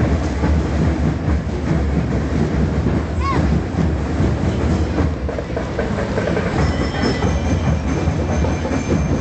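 Dense street-parade noise: a steady loud rumble with fast clattering running through it. About three seconds in, a short high tone rises and falls.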